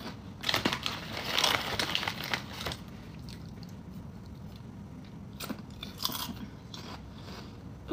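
A person chewing crunchy crab-flavoured chips: dense crunching for the first few seconds, then quieter chewing with a couple of short crunches later on.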